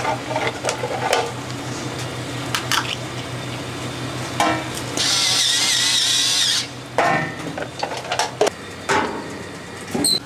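Kitchen work over a paella pan: clinks of shells and metal against the pan over a steady low hum, with a loud hissing burst about a second and a half long midway, then a few knocks.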